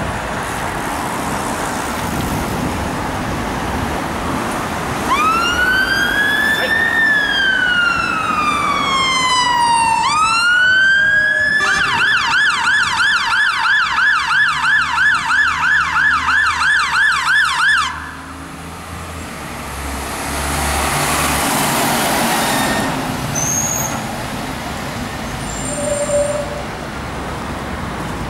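Road traffic noise, then a fire engine's siren comes in with one slow rising and falling wail. It switches to a fast yelp of rapid up-and-down sweeps, which cuts off suddenly.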